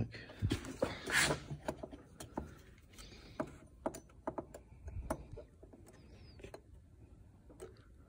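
Scattered light clicks and taps of a digital caliper and metal bicycle crank parts being handled while a clearance is measured, with a brief rustle about a second in.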